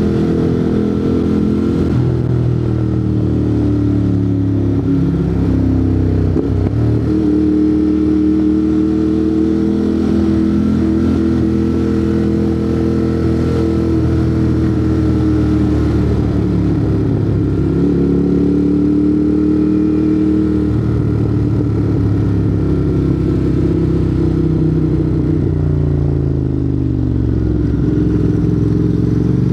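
Ducati Monster 821's L-twin engine running through a Termignoni exhaust while riding, its note rising and falling several times with throttle and gear changes.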